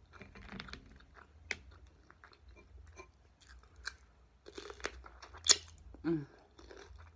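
Close-up eating sounds: crunchy bites and chewing of a raw cucumber, with wet mouth clicks. The sharpest crunch comes about five and a half seconds in.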